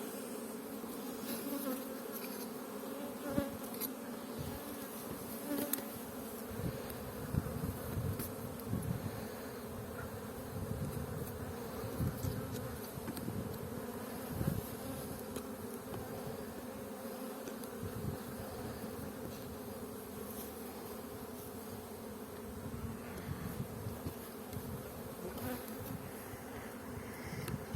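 A honeybee colony humming steadily as its hive is opened for inspection, with scattered light knocks.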